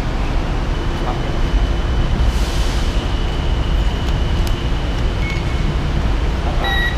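Handheld metal-detector wand giving a steady high-pitched tone for about five seconds as it is passed over a backpack during a bag check, then a short beep near the end, over a steady low rumble of station noise.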